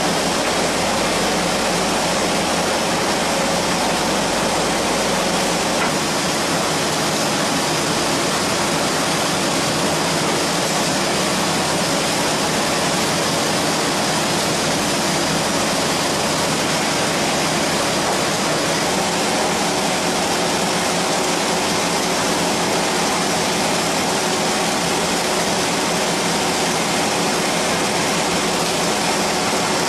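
Folder gluer carton machine running: a steady, even mechanical noise with faint hums and no rhythm.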